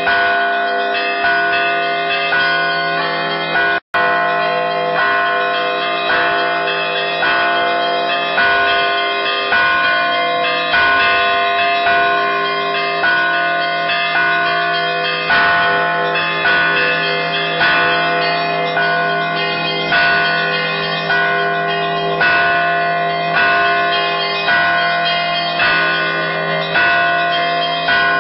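Several church bells of different pitches rung by hand in a repeating rhythmic peal. Strong strokes fall about once a second between quicker strokes on smaller bells, and all the bells ring on together. The sound cuts out for an instant about four seconds in.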